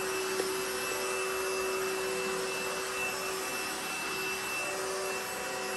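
Cordless stick vacuum cleaner running steadily: an even rush of air with a constant high whine from the motor.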